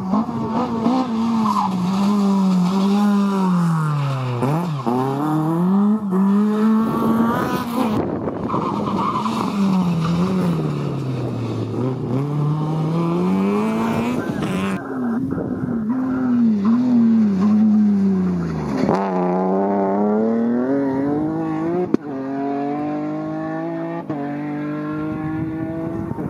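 Rally cars driven flat out on a tarmac stage: engines revving hard, the pitch climbing with each gear and dropping sharply on lifts and downshifts, in several passages that change abruptly. Near the end one car accelerates steadily up through the gears.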